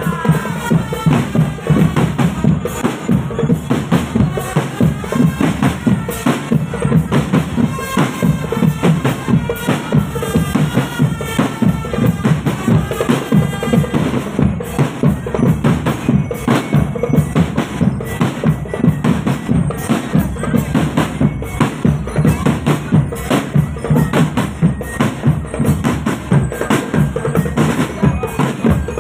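Marching drum band playing a driving, steady beat on bass drums and snare drums, with a melody carried over the top.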